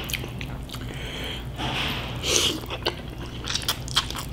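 Close-up eating sounds of thin cold noodles in sauce: two hissing slurps about one and two seconds in, then wet chewing and lip smacks as a chopstick load of noodles is sucked into the mouth near the end.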